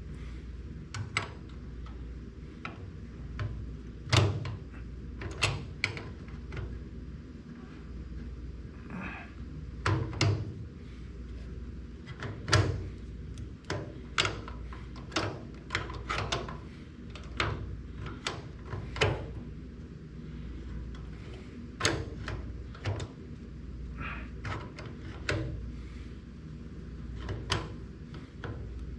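Irregular clicks and knocks of hand work on an antique washing machine's shift mechanism while a new shift spring is fitted, spaced out unevenly with a few louder knocks, over a low steady hum.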